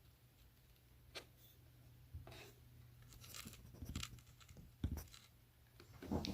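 Faint rustling and scattered small clicks of handling, with one sharper click about five seconds in, over a low steady hum.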